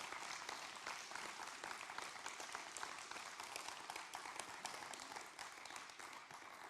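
Congregation applauding, many hands clapping at once, dying down near the end.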